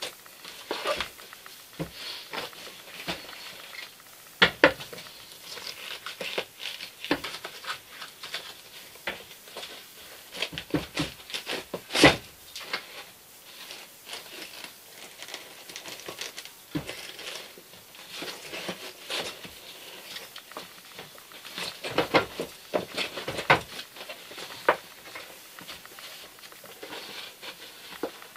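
Old upholstery cover being pulled and peeled off a 1965 Corvette seat frame and its foam padding: irregular rustling, crinkling and tearing, with scattered sharp snaps, the loudest about twelve seconds in.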